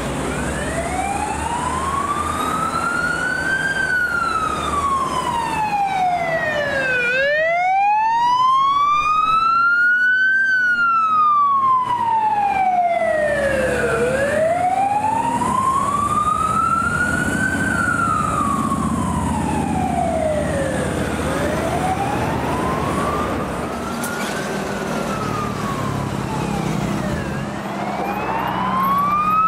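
A Fire & Rescue NSW emergency vehicle's siren on a slow wail, rising and falling about every seven seconds, over the rumble of engines and passing traffic.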